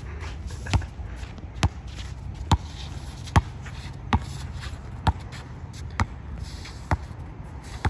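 Basketball being dribbled on an outdoor hard court: sharp, even bounces at about one a second, over a low steady background rumble.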